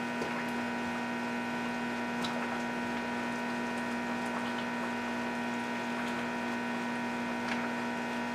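A steady electrical hum with a few faint taps of a spatula stirring stew in a rice cooker's inner pot.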